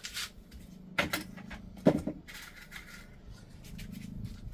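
A few short scrapes and knocks from a crab scoop part being cut and handled by hand, the loudest a sharp knock about two seconds in, over a low steady hum.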